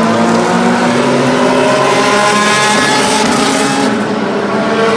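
A field of IndyCar race cars with 2.2-litre twin-turbo V6 engines running together at low speed as the cars roll off the starting grid. Several engine notes overlap, drifting up and down in pitch.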